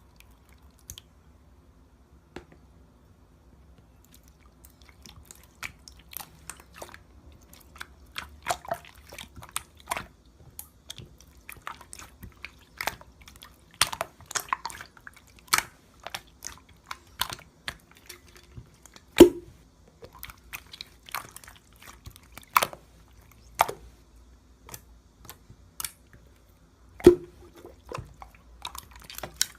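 Slime being pressed, folded and stretched by hand, giving many irregular sharp clicks and pops. They are sparse at first and then come thick and fast, with two louder pops about two-thirds of the way through and near the end.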